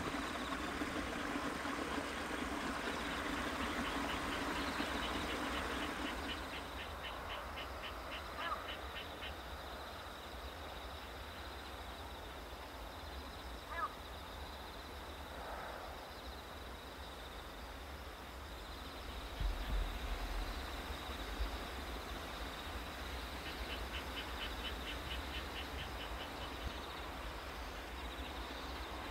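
Countryside ambience: insects trilling in fast, evenly pulsed runs twice, a few short bird-like chirps, and a low rumble of wind underneath.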